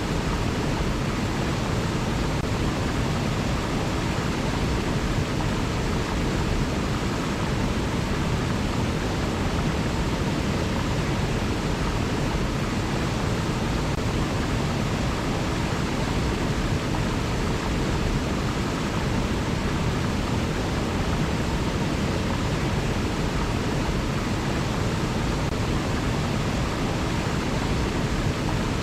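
River water flowing steadily: an even, unbroken rush, fullest in the low range.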